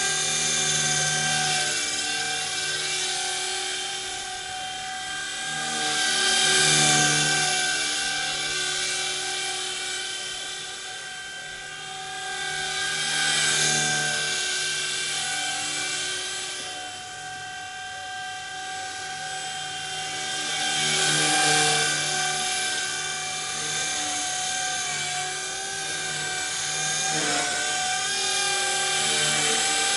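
Blade 180 CFX micro RC helicopter in flight, its electric motors and rotors whining at a steady pitch, the sound swelling and fading every several seconds as it moves about. The owner takes the sound for bearings going out.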